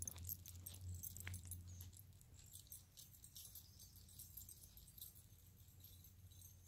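Dog's collar tags jingling faintly as the dog walks past, with a few light steps on pavement in the first second or so, growing fainter as it moves away.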